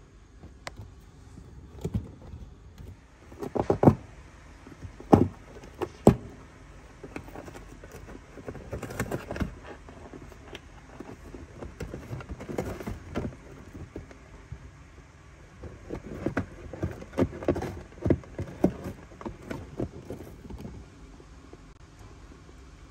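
A cat clawing and biting at a cardboard box: irregular scrapes, scratches and knocks of claws and teeth on cardboard, coming in bursts with short pauses, the sharpest knocks a few seconds in.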